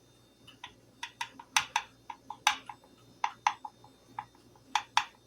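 Butter knife clicking and knocking against the cake pan while cutting the cake: a run of sharp, irregular clicks, about fifteen over four seconds.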